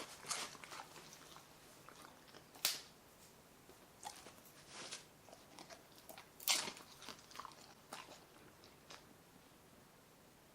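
A Samoyed dog crunching and chewing hard treats: three loud crunches a few seconds apart, with softer chewing clicks between them.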